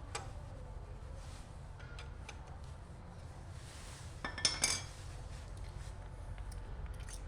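Metal hand tools clinking: faint scattered ticks, then a quick cluster of sharp metallic clinks about four seconds in.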